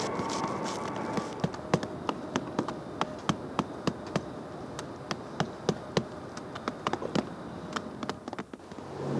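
A roofer's hammer tapping in hinoki cypress bark roofing, quick sharp taps at an uneven pace of about three a second that stop near the end. A steady high whine stops about a second in.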